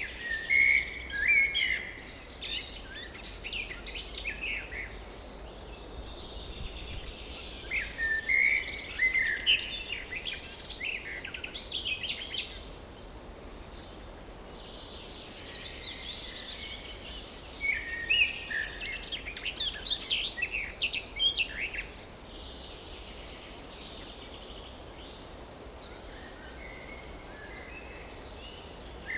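Several songbirds singing in a forest: bursts of quick chirps and warbling phrases, quieter for several seconds near the end, over a steady faint background hiss.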